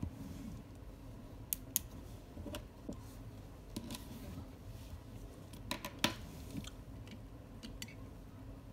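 Pages of a spiral-bound notebook being flipped over, with paper rustling and a scattering of sharp clicks and taps from small items handled on a desk.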